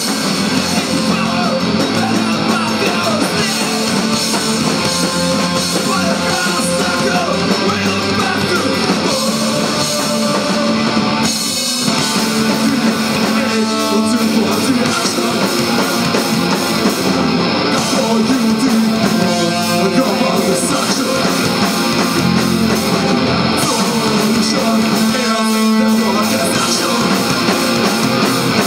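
Live band playing loud rock music, with electric guitar to the fore and some singing.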